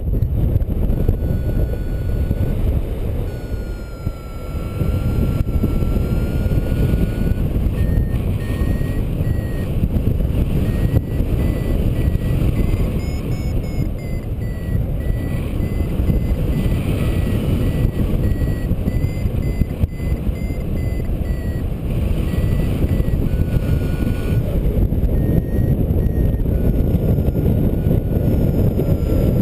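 Airflow rushing over the microphone during paraglider flight, with a flight variometer beeping above it: runs of short beeps that drift up and down in pitch, the sign of the glider climbing in lift, alternating with stretches of a steady lower tone.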